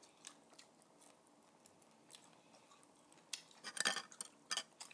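Eating sounds from crispy fried chicken wings being picked apart and bitten by hand: faint scattered clicks, then a burst of louder crackly clicks and crunches from about three and a half seconds in.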